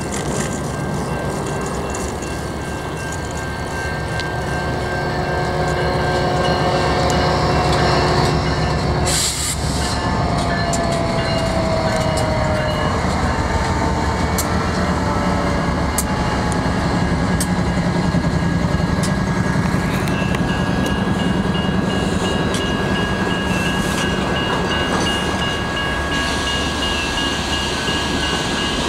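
Electronic railroad-crossing bells ringing steadily while a BNSF freight train led by diesel-electric locomotives (EMD SD70ACe, GE ES44C4, GE C44-9W) passes. The horn sounds as the locomotives approach and drops in pitch as they go by about nine seconds in. The engines' low rumble follows, then the rattle and clicking of freight cars rolling over the crossing.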